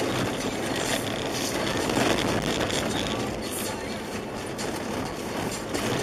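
Skoda Yeti 1.8 DSG driving over packed snow and ice, heard from inside the cabin: a steady haze of tyre and road noise with the engine underneath, swelling slightly about two seconds in.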